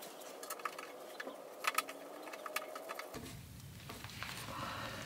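Scattered light clicks and taps of plastic body covers and small parts being handled and fitted onto a motorcycle's frame by gloved hands.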